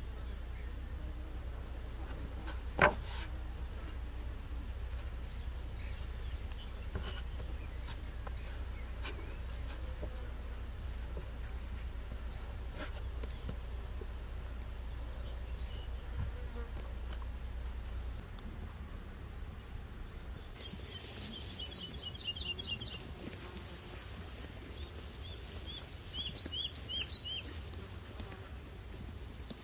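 Insects chirring steadily with a fast, even, high trill. A single sharp click comes about three seconds in, and short high chirps come twice near the end.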